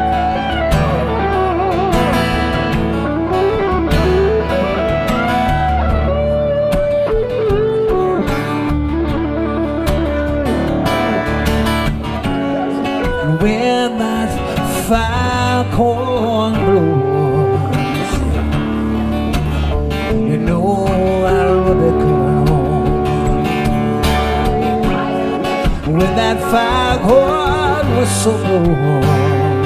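Instrumental guitar break: an electric guitar plays a lead solo with bent, gliding notes over a strummed acoustic guitar accompaniment.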